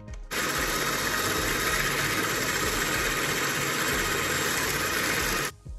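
Electric hand mixer running steadily at one speed, its twin beaters whisking buttermilk, eggs and melted butter. It switches on just after the start and stops shortly before the end.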